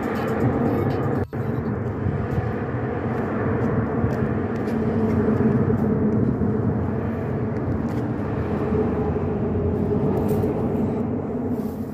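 Steady vehicle drone: a continuous rumble with a low hum, broken by a momentary dropout about a second in.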